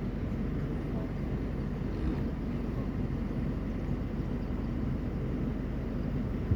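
Safari vehicle's engine idling with a steady low rumble.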